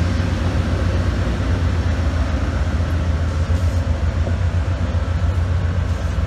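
Amtrak passenger train rolling slowly past, its cars making a steady low rumble on the rails.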